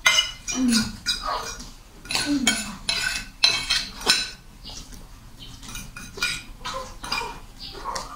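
A metal spoon and fork clinking and scraping against ceramic plates in quick, irregular strokes while noodles are eaten fast, busiest in the first half and sparser after.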